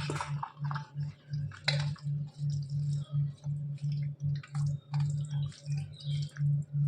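Close-up eating sounds of rice and curry: irregular wet mouth clicks, smacks and chewing, louder near the start and again about two seconds in. Under them runs a low hum that throbs about three times a second.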